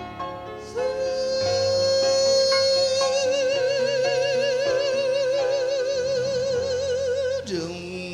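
Female jazz vocalist holding one long note for about six and a half seconds, steady at first and then in a wide vibrato, before it falls away near the end. Piano and bass play changing chords beneath it. This is a live performance recorded on cassette tape.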